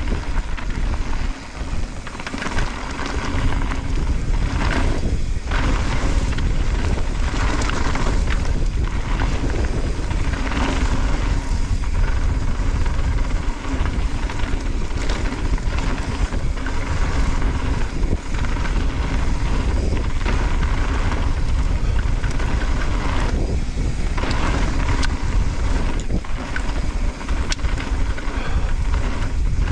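Wind buffeting the camera microphone while a downhill mountain bike rolls fast over a loose dirt-and-gravel trail, its tyres crunching over stones and the bike rattling with frequent small knocks.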